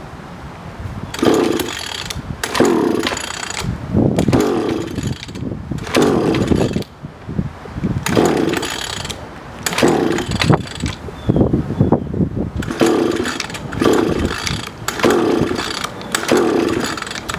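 Small 3.5 hp outboard motor being cranked by its pull-cord starter over and over, about one pull a second, each pull spinning the engine briefly with a whirring sweep. The engine does not fire.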